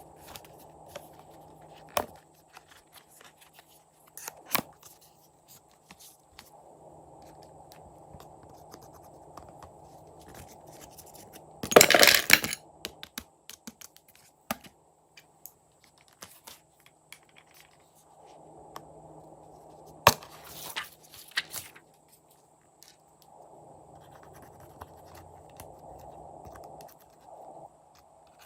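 Hands working slime and its add-ins: scattered clicks and scratching, with a loud crackling, tearing burst about twelve seconds in and another cluster of sharp clicks around twenty seconds in.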